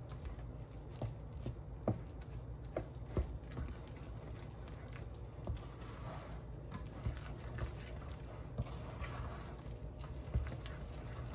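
Sticky brioche dough being stirred with a spatula in a stainless steel mixing bowl: soft wet squishing with irregular light knocks against the bowl.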